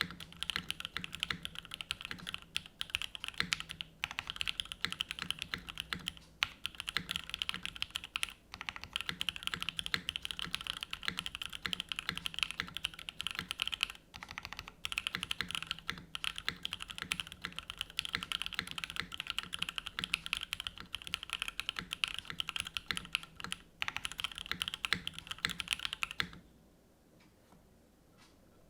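Fast, continuous typing on a Rama U80-A mechanical keyboard with stock, factory-lubed C3 Tangerine v2 linear switches (62 g) and GMK keycaps: a dense stream of key clacks that stops a couple of seconds before the end.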